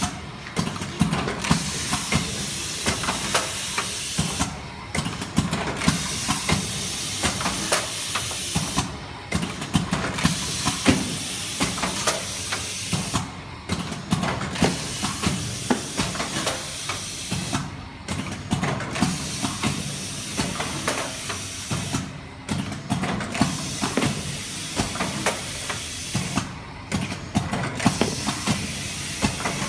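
Automatic stretch-film soap wrapping machine running: a steady hiss with rapid clicking and clattering of its mechanism. The hiss breaks off briefly about every four and a half seconds as the machine cycles.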